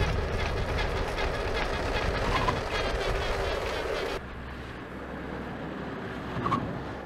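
Test car running at speed on a test track: steady road and running noise with a fast, even clatter through it. The sound drops abruptly about four seconds in to a quieter low hum.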